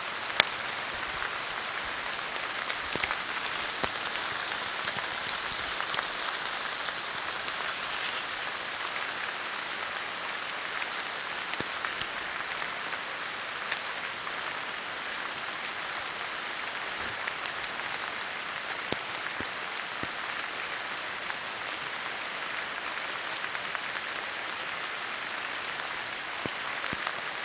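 A steady, even hiss like rain falling, with scattered faint ticks and one sharp click about half a second in.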